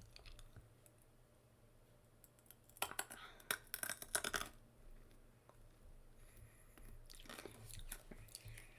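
Faint clicking and crackling close to the microphone in two short spells, about three seconds in and again about seven seconds in.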